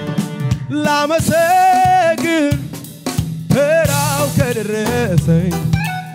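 Male singer singing an Amharic gospel song into a microphone in long held, wavering notes, over keyboard accompaniment with a steady low backing.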